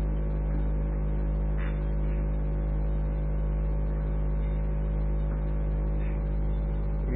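Steady low electrical hum with a hiss over it, unchanging: the background noise of an old tape recording of a talk, heard in a pause between sentences.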